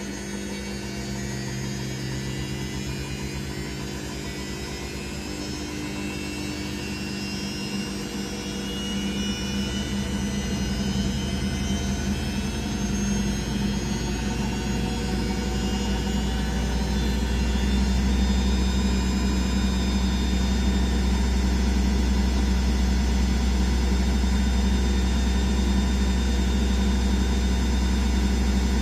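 Candy Aquamatic Aqua 1000 T washing machine spinning up for its final gentle spin at 800 rpm: the motor whine and drum hum get louder over the first eighteen seconds or so, then run steady at speed.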